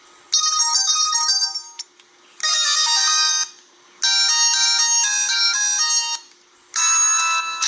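Samsung SGH-E840 mobile phone ringtone playing: bright, high synthesized melody notes in four short phrases, each followed by a brief pause.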